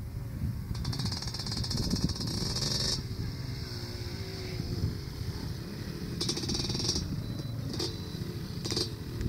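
Off-road three-wheeler and dirt-bike engines running across a hillside. One engine's pitch rises and falls about three to five seconds in.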